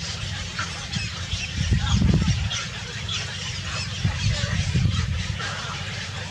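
Birds calling, with many short high chirps, and two louder low rumbling bursts, about two seconds in and again around four to five seconds in.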